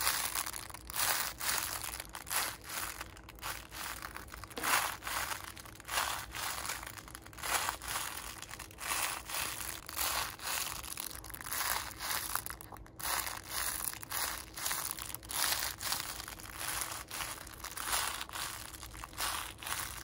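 Mylar foil sealed inside a painted sponge squishy crinkling as the squishy is squeezed and released by hand, again and again at an irregular pace.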